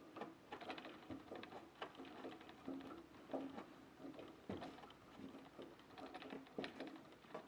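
Screwdriver driving 6-32 hex screws to mount a computer power supply in a PC case: faint, repeated runs of small metallic clicks and ticks as the screws turn.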